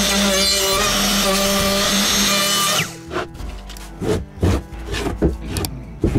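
Handheld router cutting oak on a router sled: a steady high motor whine under dense cutting noise, which cuts off abruptly about three seconds in. A few scattered knocks follow.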